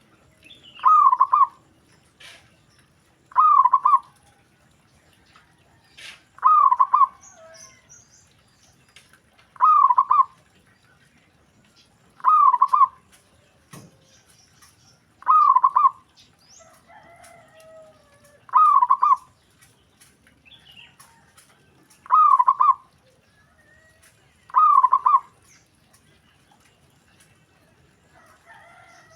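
Zebra dove (perkutut) cooing: a short rolling coo phrase repeated about every two and a half to three seconds, about ten times, with faint higher chirps from other birds in between.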